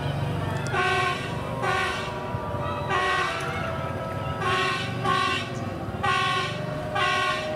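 A train horn sounding a series of short blasts, about seven in quick succession, as the track-measurement train runs along rails set into a city street. A steady low engine rumble runs underneath.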